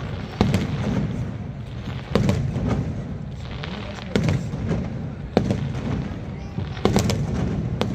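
Aerial fireworks bursting overhead: about six sharp bangs, one every second or two, over the low chatter of a crowd.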